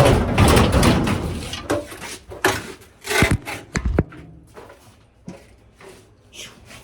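Dryer parts being handled during disassembly: a stretch of scraping and rattling, then several separate knocks, a couple ringing briefly, fading to faint clicks near the end.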